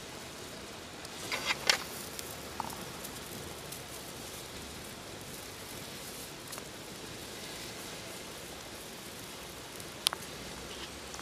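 Steady hiss of water boiling in a large aluminium pot of whole crabs. A few sharp clicks come about a second and a half in, and one more near the end.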